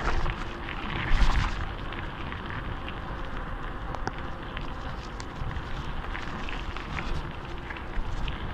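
Tyres rolling fast over a gravel road, a steady crackling crunch with scattered sharp ticks of stones. Wind buffets the microphone in two loud gusts in the first second or so.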